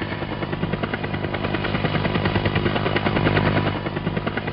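Helicopter rotor beating in a rapid, even rhythm over a steady engine hum.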